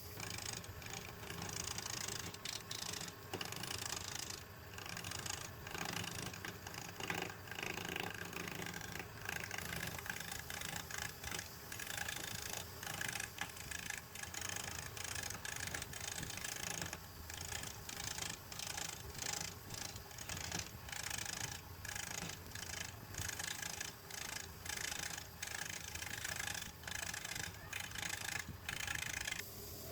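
Wood lathe with a turning tool cutting the spinning wood: a steady hiss of shavings, broken by brief gaps as the tool comes off the cut.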